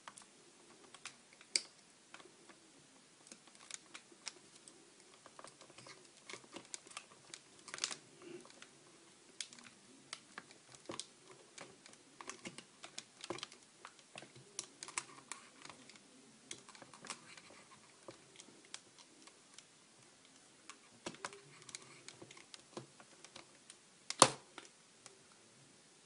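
Faint, irregular small clicks and taps of an iPhone 3G/3GS and its small tools being handled during reassembly, with one louder sharp click near the end.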